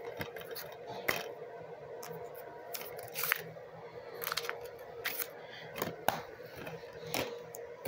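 Plastic DVD cases being handled, opened and snapped shut: a series of sharp clicks and clacks at irregular intervals, about seven in all.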